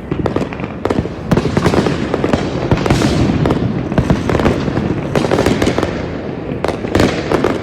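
Fireworks display in a continuous barrage: many rapid, overlapping bangs and crackles with no let-up.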